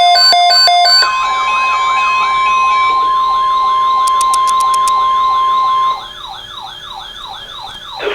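Emergency alert tones: a rapid pulsing beep pattern for about the first second, then an electronic siren yelping in quick rising-and-falling sweeps over a steady single alert tone. The steady tone cuts off about six seconds in, and the yelping siren carries on more quietly.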